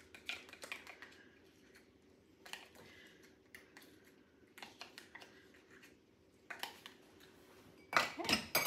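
Scattered light clicks and taps of a small hot-sauce bottle and a measuring spoon being handled, then a quicker, louder clatter of small items being set down on the kitchen counter near the end.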